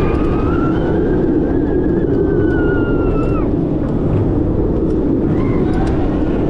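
Tigris launched roller coaster train running over the track, with steady rumble and wind on the rider's camera. A high whine holds, then falls away about three and a half seconds in.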